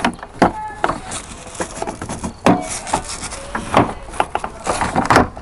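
Irregular knocks, clicks and scraping as a replacement tailgate latch handle is worked and angled through its hole in the Honda Fit's tailgate.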